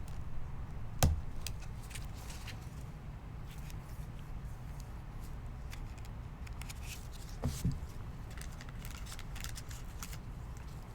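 Trading cards being handled on a table: light clicks and scrapes, with a soft thud about a second in and another one later on.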